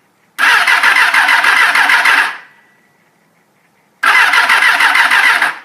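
1989 Suzuki GSX-R 750 inline-four being cranked on its electric starter in two bursts, the first about two seconds long and the second shorter near the end, each stopping without the engine catching. The no-start is put down by the owner to no fuel reaching the carburetors through a bad petcock.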